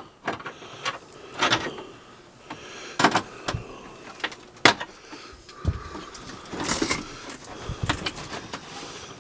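Scattered sharp knocks, clicks and rustling of the loosened hard-plastic dashboard and its wiring being handled in a 2002 Ford F-150's cab, with the loudest knocks about a second and a half, three, and four and a half seconds in.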